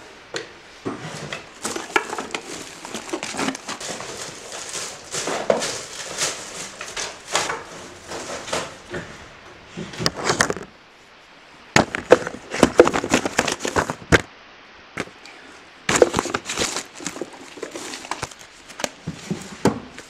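Rummaging through a wooden nightstand drawer: irregular rustling, crinkling and knocks of objects being moved about. There are two short lulls, about ten and fifteen seconds in, and the loudest knocks come around twelve to thirteen seconds in.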